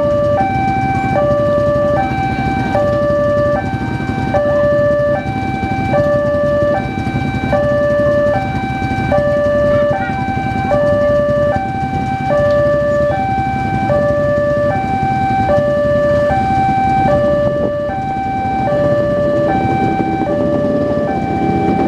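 Railway level crossing's electronic warning alarm sounding a steady alternating high–low two-tone signal, each tone about half a second long, that warns of an approaching train while the barrier is down. A low engine rumble runs underneath.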